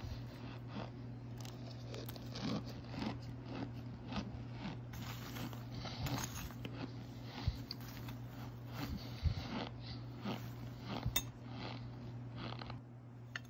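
Metal spoon pressing and stirring through hard chunks of oven-baked Argo cornstarch, giving an irregular run of dry crunches and crackles that stops near the end.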